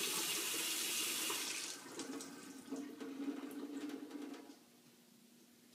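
Kitchen faucet running full on cold. The flow dies away from about two seconds in, with a low steady tone while it dwindles, and stops about four and a half seconds in as the cold-water shutoff valve under the sink is closed.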